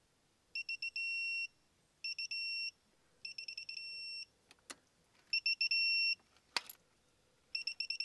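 Digital torque adapter beeping as each injector is torqued to 75 Nm: a run of quick two-pitch beeps, then a longer steady tone that marks the set torque reached. This repeats five times, and there are two sharp clicks between the beep runs.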